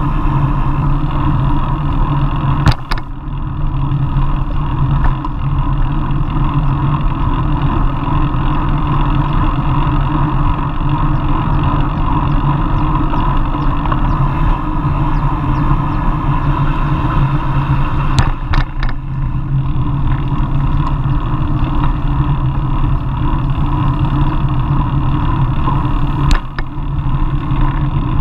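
Wind rushing over the microphone of a handlebar-mounted action camera on a moving road bike, mixed with tyre and road noise. A few brief knocks come from bumps in the road: around three seconds in, about eighteen seconds in, and near the end.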